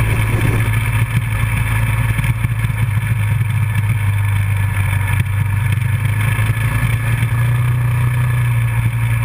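Dual-sport motorcycle engine running steadily while riding, with a constant low drone that holds pitch throughout.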